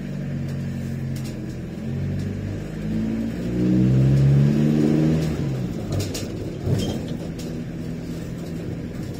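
Iveco Daily 35-8 van's diesel engine, heard from inside the cab, running through its newly fabricated custom exhaust. The engine pulls away with the revs climbing and getting louder for a few seconds, drops back at a gear change about five seconds in with a couple of light clicks, then runs steadily.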